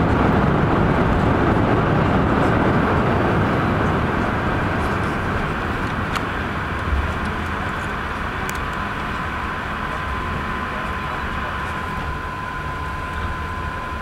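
Cabin noise of an Airbus A380 rolling out on the runway after touchdown: a loud rushing roar that slowly dies down as the jet decelerates. A faint steady high tone joins about halfway through.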